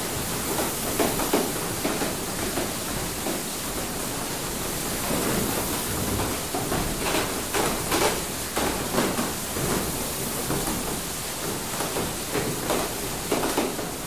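Interior of a water mill: a steady rush of running water, with irregular knocks and clunks from the mill's workings.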